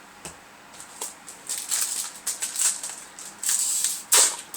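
Yu-Gi-Oh trading cards and foil booster-pack wrappers being handled at close range: a light click, then a run of crinkling, papery rustles that get louder and more frequent, with the loudest near the end.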